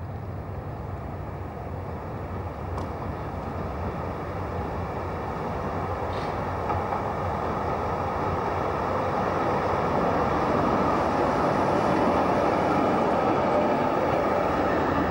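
DÜWAG Type M articulated tram running on street track. The rolling noise of its wheels on the rails grows steadily louder as it approaches and passes close by.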